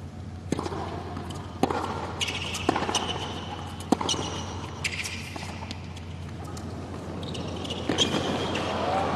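Tennis rally on a hard court: sharp racket strikes and ball bounces about once a second, with short high squeaks of players' shoes on the court surface.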